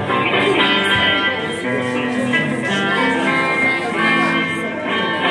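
Guitar music: a guitar playing a tune, its plucked notes ringing on.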